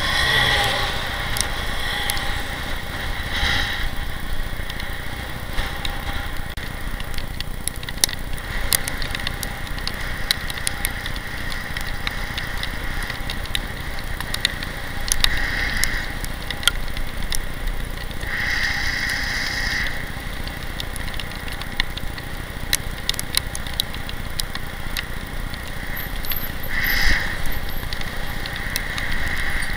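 Riding noise picked up by a bicycle-mounted camera: steady wind rumble on the microphone and road noise, with many small clicks and rattles from bumps, and a few brief louder hissing swells.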